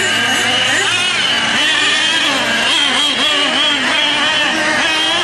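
Several nitro RC monster trucks' small two-stroke glow engines racing together, their high whine rising and falling over and over as they rev and ease off.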